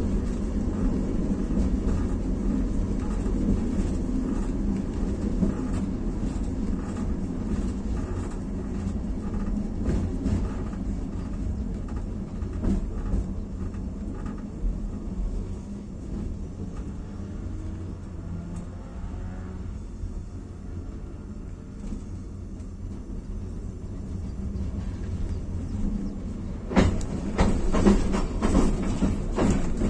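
Tram car running on rails: a steady rumble of wheels and running gear that gets quieter in the middle. Near the end, a quick run of sharp clacks and knocks as the wheels cross rail joints or points.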